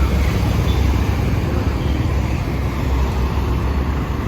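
Road traffic noise: a steady rumble of passing vehicles, heaviest in the low end.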